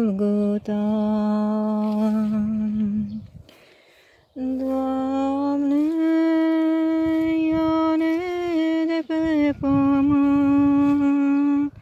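A woman's voice holding the last word of a sung hymn line, then humming the slow tune without words in long held notes. There is a short breath pause about four seconds in.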